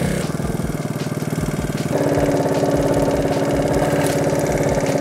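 Small scooter engine running on butane fed into its intake, with the petrol supply disconnected and the intake hose taped partly shut to act as a choke. It runs roughly at first, then faster and louder from about two seconds in.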